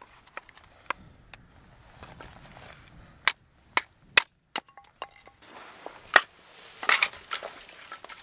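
Hatchet chopping firewood into kindling on a wooden chopping block: a series of sharp, separate chops, then a clatter of split wood pieces knocking together near the end.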